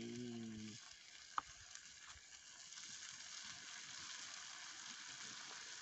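Onion-tomato masala sizzling faintly in a small steel pan over a wood fire, a steady hiss with one sharp click about a second and a half in.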